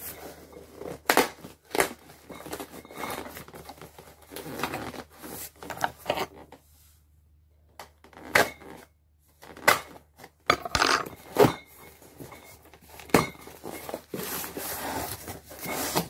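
Cardboard box being opened by hand: packing tape slit and torn and the flaps pulled open, with irregular scrapes, rustles and sharp knocks of cardboard. There is a brief quiet pause about seven seconds in.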